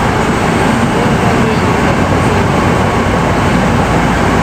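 Hankyu 9000 series electric train, heard from inside car 9108 while running: a loud, steady rumble of wheels on rail with no change in pitch.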